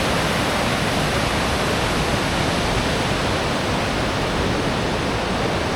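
Rushing river water: a steady, loud rush of rapids, even and unbroken.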